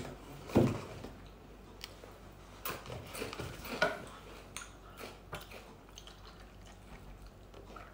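Cardboard milk carton handled on a kitchen counter, with scattered light knocks and clicks as its spout is pried open, then milk poured onto Shreddies cereal in a ceramic bowl near the end.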